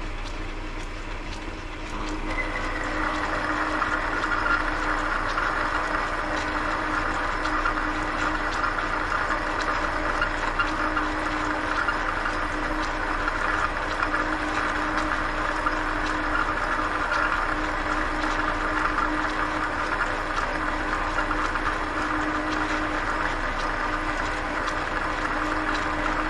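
Belt-driven 1940s South Bend lathe running steadily, with the cutting tool taking a facing pass on a steel workpiece under automatic feed. The cutting noise comes in about two seconds in and holds steady over the hum of the drive.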